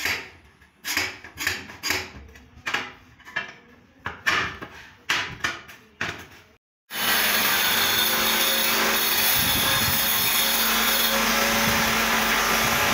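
A dozen or so short, sharp strokes, about two a second, as a ceramic tile is scored by hand along a straight edge. About seven seconds in, an angle grinder starts cutting the tile and runs steadily and loudly.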